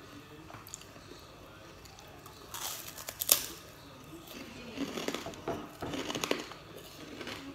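Eating sounds: chewing and crunching of food eaten by hand, in two spells of crackly noise, the sharpest about three seconds in.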